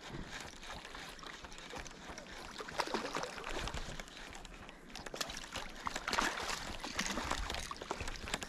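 Water sloshing and splashing beside a boat as a hooked fish is fought up to the side, in irregular bursts, loudest about three seconds in and again around six to seven seconds.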